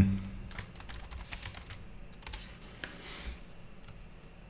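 Typing on a computer keyboard: a quick run of keystrokes over the first two seconds, then a few single clicks.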